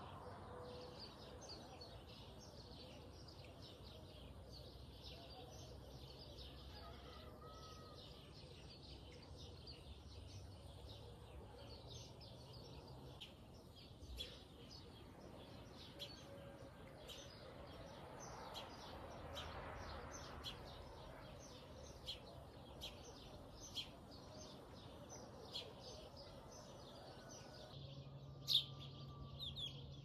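Swallows twittering as they fly overhead: many short, high chirps, faint against a steady background noise. A single click near the end.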